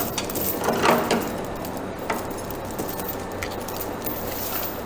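Steel chain of a homemade tractor tire chain clinking and rattling as it is lifted and handled: a few separate clinks, with a louder rattle about a second in, over a steady faint hum.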